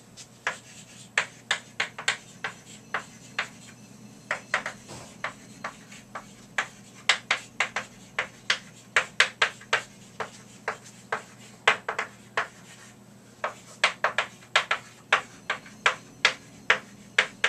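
Chalk writing on a chalkboard: an irregular run of sharp taps and short scratches as each letter is stroked onto the board, often in quick clusters.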